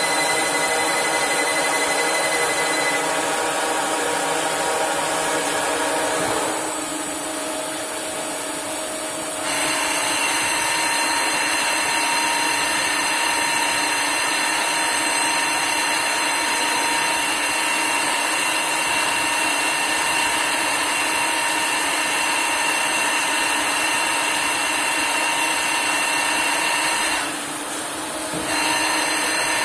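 CNC lathe machining a metal part, a steady whine of several tones from the spindle and the cutting tool. It drops off for about three seconds some seven seconds in and starts again with a different set of tones as a new tool takes over, and drops briefly once more near the end.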